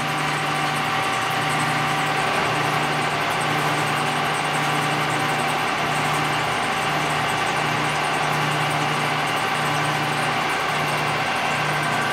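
Kearney & Trecker horizontal milling machine running steadily, its motor and gear train humming with a steady whine and a low pulse about once a second, as the table traverses on power feed.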